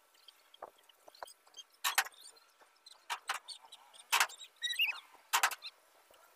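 A few sharp clicks and knocks at irregular intervals, with a brief wavering high-pitched sound just before the last knock.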